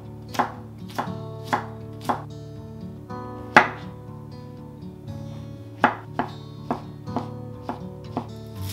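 Chef's knife slicing carrot and then mushrooms on a wooden cutting board, the blade knocking on the board about once or twice a second in an uneven rhythm, with one louder knock about three and a half seconds in. Soft background music plays underneath.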